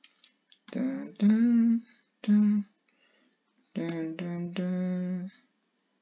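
A person humming a few held notes, in three short phrases with brief pauses between them.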